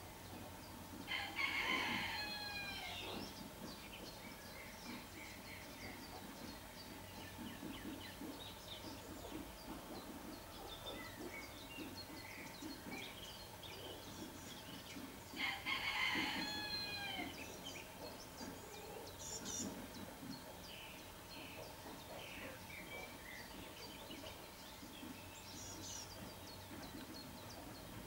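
Two long, loud bird calls about fourteen seconds apart, each falling in pitch at the end, over faint chirping of small birds.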